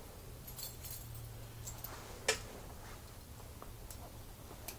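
A handful of small, sharp clicks and clinks from a key and a just-opened additive bottle being handled, the loudest about halfway through, over a faint steady low hum.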